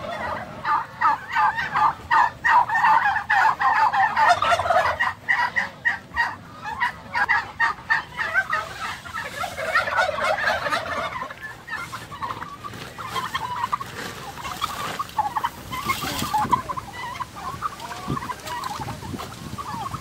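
Turkeys calling: many short calls overlapping in quick succession, changing about halfway through to sparser, slightly quieter calls.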